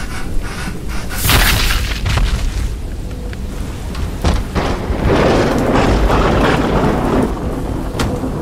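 Thunderstorm: steady rain with thunder, a crash about a second in and a longer rolling rumble from about four and a half to seven and a half seconds. A few sharp clicks come near the end.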